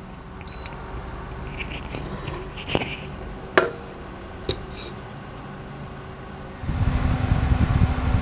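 Kitchen handling sounds: a short high beep about half a second in, and a few light clicks and knocks of cookware. From about seven seconds in, a much louder low rumbling hum starts.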